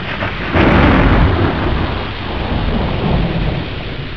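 A roll of thunder: a sudden loud surge of rumbling noise about half a second in that slowly dies away.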